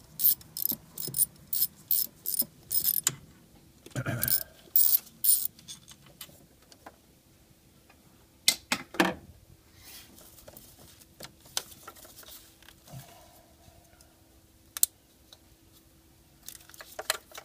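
Ratchet wrench clicking in a quick run of short bursts for about three seconds, then a few more bursts and scattered knocks among the engine parts. The ratchet is undoing the bolt that holds down an ignition coil on the V8 engine.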